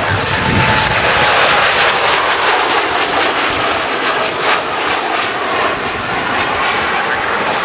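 Boeing 787's jet engines at takeoff thrust as the airliner lifts off and climbs away: a loud, steady rush of jet noise, with a faint tone sliding down in pitch in the first second or so.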